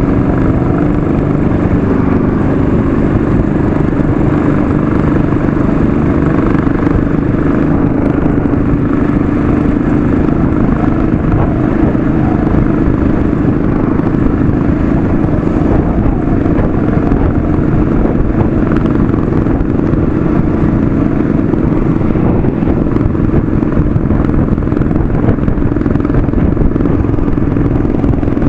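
Royal Enfield Classic 500's single-cylinder engine running at a steady cruise on the road, its pitch holding even throughout.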